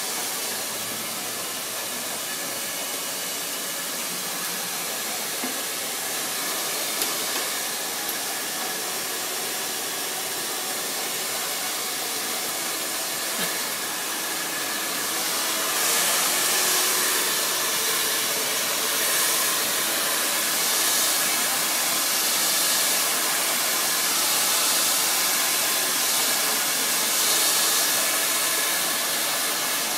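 Handheld blow dryer running steadily as it dries a dog's coat, a constant rush of air with a faint motor hum. It gets louder about halfway through and rises and falls a little after that.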